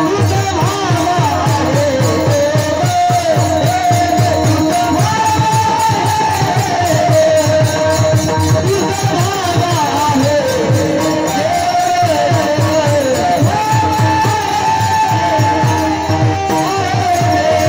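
Varkari kirtan devotional music: a wavering melody line over a fast, steady drum rhythm, with hand cymbals keeping time.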